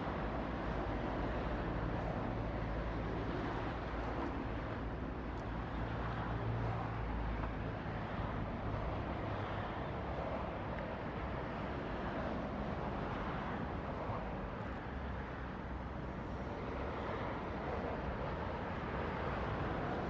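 Steady outdoor background noise: a low rumble under an even hiss, with no bird calls standing out.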